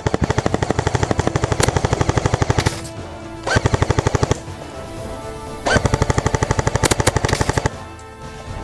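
Airsoft gun firing on full auto in three bursts: a long one of about three seconds, a short one of about a second, then one of about two seconds. Each burst is a fast, even rattle of shots.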